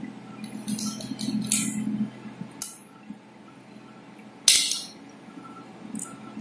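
Handling of a micropipette and glass test tubes in a plastic rack: a quick run of small plastic and glass clicks and rattles, then one louder sharp clack about four and a half seconds in.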